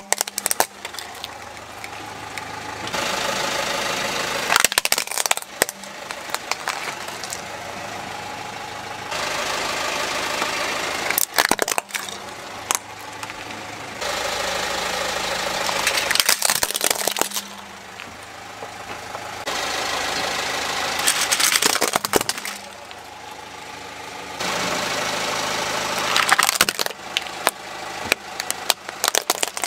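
A car tyre rolling over plastic toys and crushing them, with sharp cracking and snapping of plastic about six times, each crush a short cluster of cracks. The car's engine idles under it.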